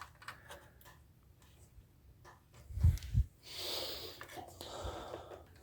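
Quiet handling noise while cables are connected: a few small clicks, two soft thumps about three seconds in, then a longer breathy hiss.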